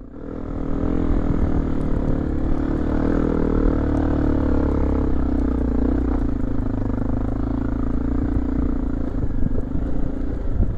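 Motorcycle engine running steadily under way, growing louder over the first second and then holding an even pitch.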